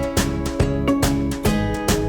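Background music: an upbeat acoustic guitar strumming in a steady rhythm.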